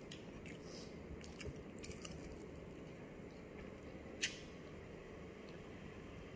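Quiet room hum with faint clicks of a fork and fingers on a dinner plate during a meal, and one sharper click about four seconds in.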